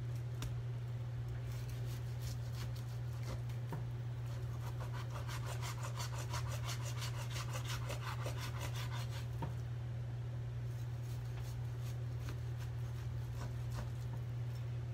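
Knife sawing through raw pork onto a cutting board: a quick run of short back-and-forth strokes for several seconds, then slower, scattered cuts. A steady low hum runs underneath.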